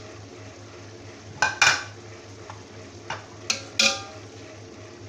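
A steel spoon clinking and scraping against a steel cooking pot as spice powder is worked into a thick onion-tomato masala, a few sharp strikes about a second and a half in and again three to four seconds in. Under it is a steady low sizzle of the masala frying.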